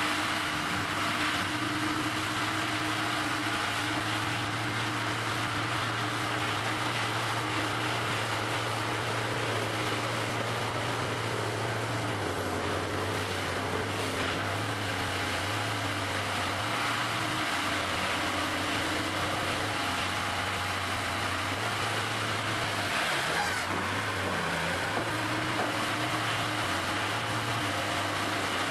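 Diesel engines of heavy logging machines, a knuckleboom log loader and a wheeled grapple skidder, running with a steady low drone.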